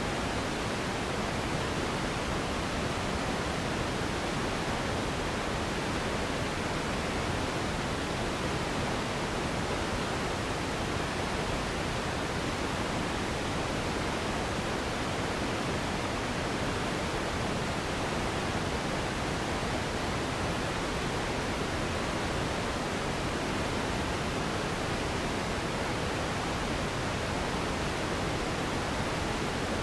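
Continuous sleep noise: an even, unchanging rushing hiss with most of its weight in the lows and mids and little at the top, the soft pink-noise kind used for masking.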